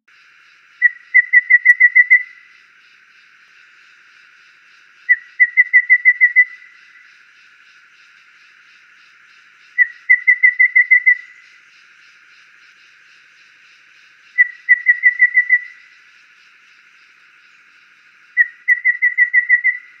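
Golden babbler singing: five phrases, each a single note followed by a quick run of about seven even, whistled notes lasting a little over a second, repeated every four to five seconds.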